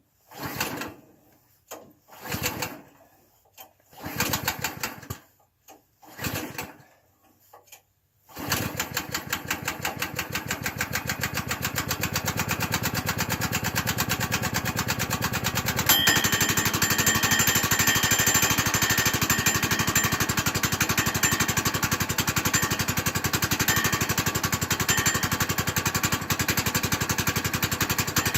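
Kohler gas engine on a Woodland Mills sawmill being recoil-started in bitter cold. Several separate pulls on the starter cord take about eight seconds, then the engine catches and runs steadily, a little louder from about halfway. It is a hard cold start that needs more pulls than usual.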